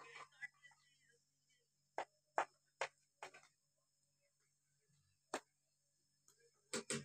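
Wooden rolling pin knocking on a wooden board while roti dough is rolled out: four short sharp knocks about half a second apart, another one a couple of seconds later, and two more near the end.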